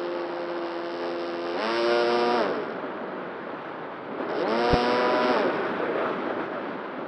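Motor and propeller of a foam RC Drak plane in flight, running at a steady pitch. Twice the throttle is opened in short bursts, about two seconds in and again about four and a half seconds in, and each time the pitch jumps up for about a second before dropping back. Wind noise hisses underneath, and a short click comes during the second burst.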